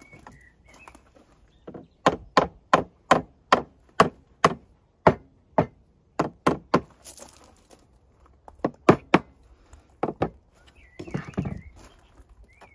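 Claw hammer striking softwood timber in a quick run of sharp blows, about two to three a second, with a couple of short pauses, then a brief scrape near the end.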